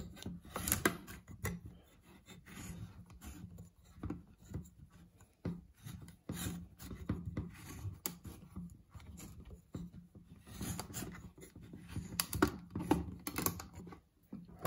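Culinare MagiCan manual can opener cranked around the rim of a steel can: its gear and stainless steel cutting wheel grinding and scraping with irregular clicks as it cuts the lid free.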